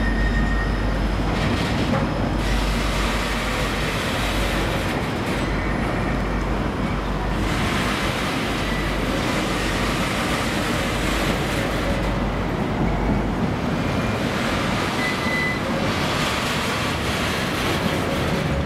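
Container freight wagons rolling past: a steady rumble of steel wheels on rail, with a few brief faint high squeals from the wheels.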